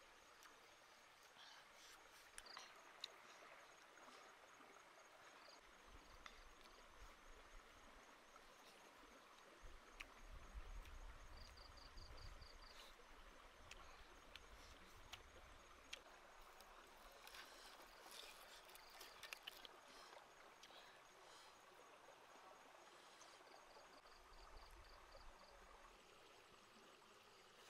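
Near silence: faint outdoor background hiss with scattered soft clicks, and two brief, rapid high-pitched trills, one about eleven seconds in and one near the end.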